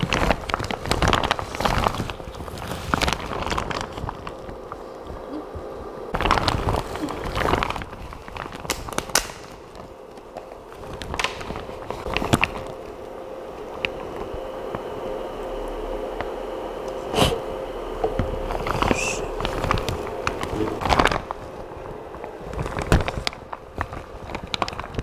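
Crinkling of a clear plastic raincoat with scattered handling clicks and knocks, over a faint steady hum.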